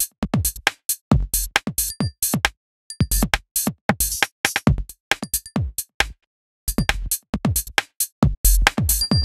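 Electronic drum-machine loop run through a noise gate: kick drums with a falling pitch and crisp high hits, each chopped off short, with brief dead-silent gaps where the gate shuts. The gate is switched between being keyed through a delay in its sidechain and being keyed without it, which changes when it opens and closes on the beat.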